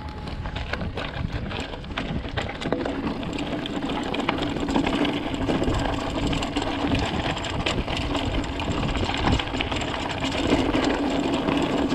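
Mountain bike rolling over a dirt and gravel trail: the tyres crunching, and the chain and frame rattling with many sharp clicks over bumps, with wind rumbling on the camera's microphone. A steady buzz joins in about two and a half seconds in.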